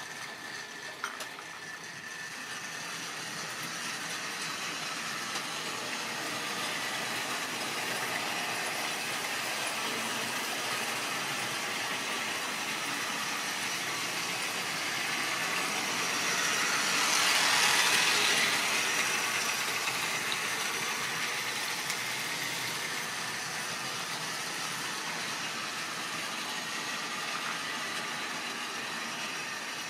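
Model railway trains running on the layout, giving a steady whirring and rattling of small electric motors and wheels on track. It grows louder to a peak about halfway through as a train passes close, then eases off. There is a single sharp click about a second in.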